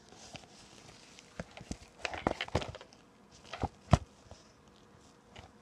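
Handling noise from a phone camera being moved and set down: scattered clicks, rubs and knocks, bunched about two to three seconds in, with a single sharp knock near four seconds as the loudest.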